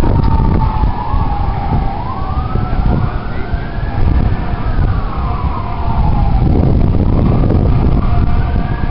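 A siren wailing, its pitch slowly rising and falling in long sweeps, over heavy wind buffeting the microphone.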